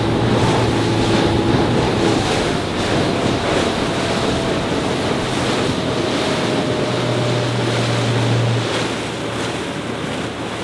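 Haines Hunter 680 fishing boat running under way: water rushing past the hull and wind buffeting the microphone, over the steady hum of the motor, whose pitch slowly drops a little.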